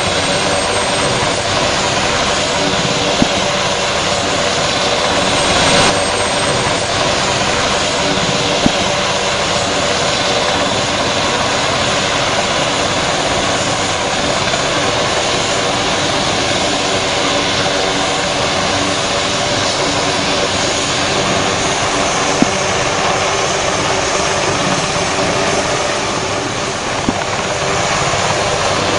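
Helicopter turbine engines and main rotor running steadily at close range: a Queensland emergency medical helicopter, then a UH-60 Black Hawk. The Black Hawk lifts off near the end. The noise stays loud and even, with a steady turbine whine and a few isolated clicks.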